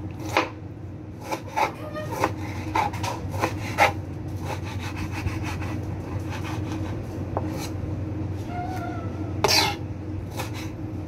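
Knife cutting on a wooden chopping board in irregular short strokes, thick in the first few seconds and sparser after, over a steady low hum.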